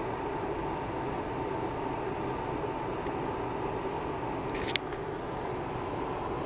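Steady background hum and hiss with a faint constant whine, and a pair of quick sharp clicks about three quarters of the way through.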